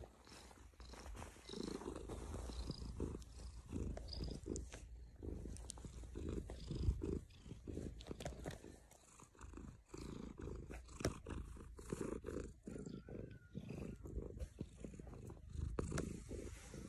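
Domestic tabby cat purring close to the microphone, a low purr that comes in a long run of repeated pulses.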